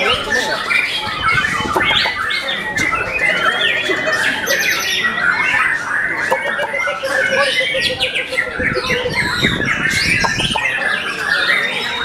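White-rumped shamas singing, several at once: a loud, continuous tangle of rapid chattering phrases, trills and whistles, with a few longer held notes.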